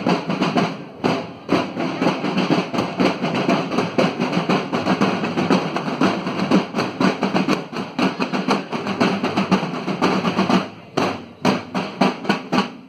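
School marching band's snare and bass drums beating a fast march cadence, dense and continuous. A little before the end the rolling breaks off into separate, evenly spaced beats.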